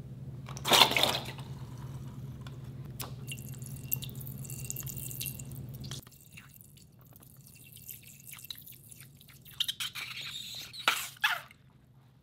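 Water from a balloon spurting and dripping into a glass bowl, with a loud splash about a second in and a few more spurts near the end.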